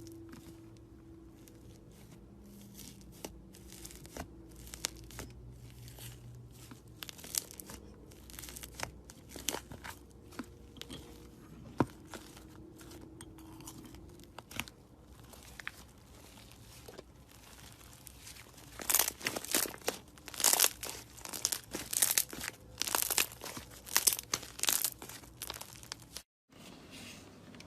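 Slime being squeezed and worked by hand, giving many short clicks and pops, sparse at first and coming thicker and louder over the last several seconds.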